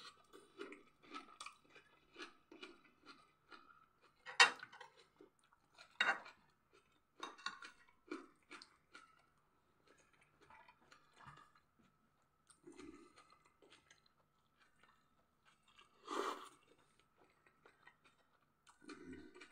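Close-miked chewing and crunching of raw onion and food, with a few sharp clicks, the loudest about four seconds in.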